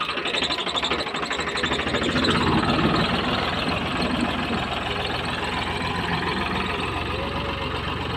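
Farmtrac 60 tractor's diesel engine running with a steady low pulsing that grows stronger a few seconds in, as the tractor moves off pulling a rear blade through sandy soil.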